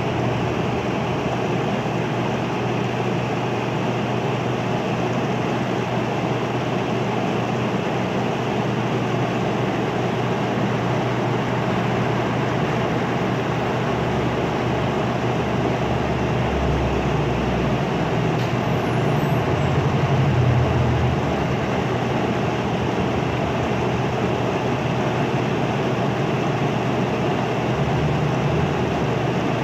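Window air conditioner running: a steady rush of fan air over a constant low hum. A deeper rumble swells for a few seconds a little past the middle.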